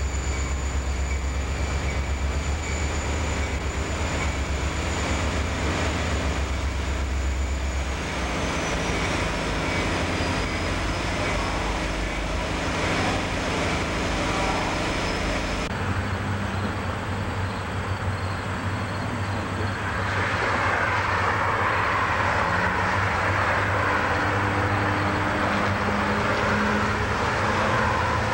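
Diesel freight locomotives running slowly past: a steady low engine rumble. About halfway through the sound changes abruptly to a more distant rumble, with a broad rushing hiss joining in for the last third.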